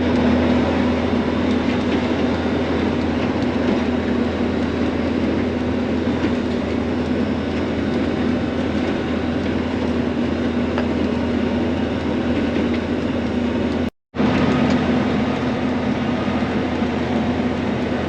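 John Deere self-propelled swather running steadily while cutting sunflowers: a constant machine drone with a steady hum. It cuts out briefly about 14 seconds in, then carries on unchanged.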